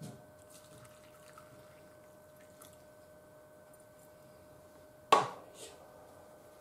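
Liquid poured from a small metal ladle into a cup of instant miso soup, faint trickling and dripping. About five seconds in comes a single sharp clack of tableware, the loudest sound, with a softer tap just after, over a faint steady hum.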